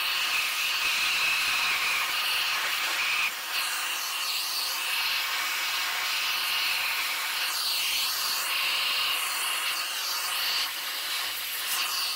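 Vacuum cleaner running at reduced power, its hose nozzle sucking dust out of a laptop's cooling fan: a steady rushing hiss whose tone shifts a little as the nozzle is moved.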